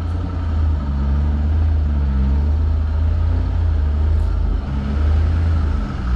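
Cammed C5 Corvette V8 running at low speed while the car reverses into a garage, a steady deep rumble with a choppy note just above it.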